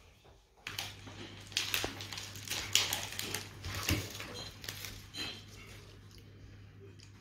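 Irregular clicks and knocks of things being handled on a work surface, over a low steady hum that starts under a second in.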